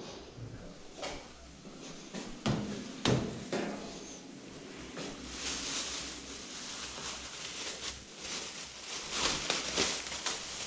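Goods and packaging being handled: several knocks and clunks over the first five seconds, then rustling in two stretches.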